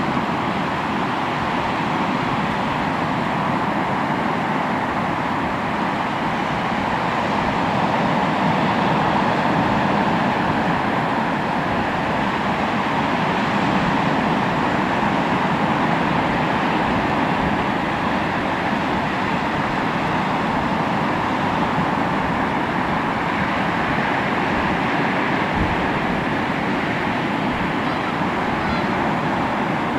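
Sea waves washing on the shore: a continuous rushing surf that swells and eases slowly.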